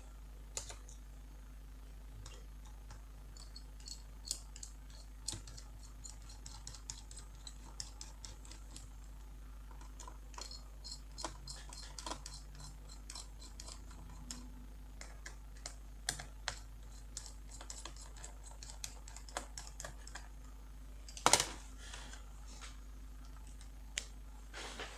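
Small metallic clicks and ticks of a screwdriver working screws out of a laptop's heatsink, some in quick runs, with one louder knock about three quarters of the way through.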